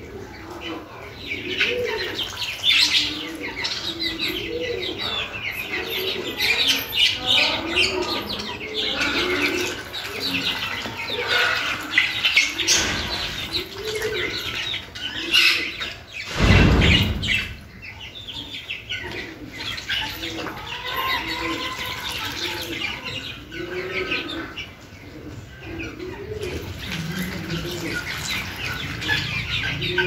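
A mixed flock of ducks and chickens feeding at a bowl of wet mash: bills pecking and dabbling in the feed in quick, constant clicks, with soft low calls and high chirps throughout. A short, loud, low thump comes about halfway through.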